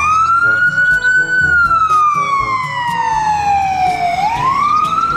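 Ambulance siren in wail mode: the pitch climbs over about a second, falls slowly for about three seconds, then climbs again near the end.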